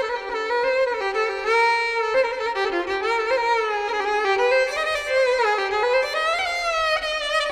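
Background music: a violin melody, its notes sliding up and down with vibrato.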